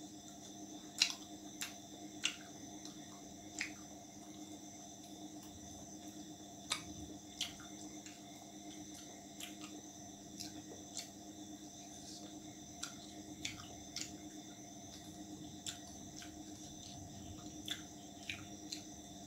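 A person chewing and eating roti with chicken curry by hand: irregular wet mouth smacks and sharp clicks, the loudest about a second in, over a steady background hum.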